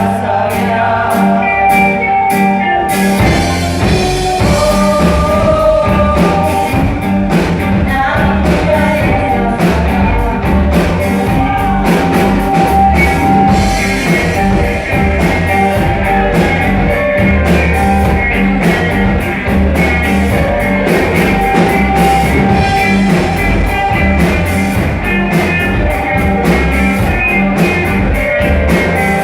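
Rock-style song with guitar, a steady beat and singing.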